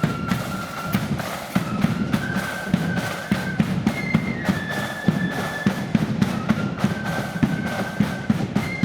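Blood-and-thunder marching flute band playing a tune: flutes hold a melody line of sustained notes over a loud, busy beat of bass drum and side drums.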